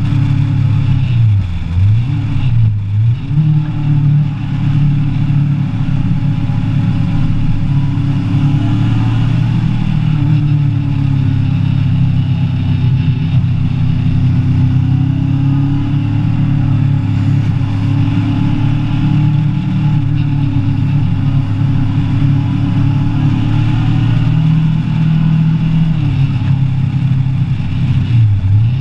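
Kawasaki ER-6n's parallel-twin engine running under load as the motorcycle rides along, heard from on the bike. The engine note dips briefly twice in the first few seconds and again at the very end, and otherwise holds steady, with rushing wind noise over it.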